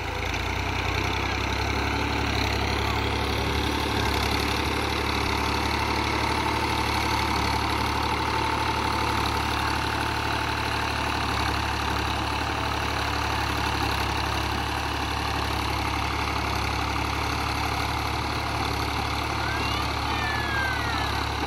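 Fiat 480 tractor's three-cylinder diesel engine running steadily under load as it pulls a three-bottom plough through the soil.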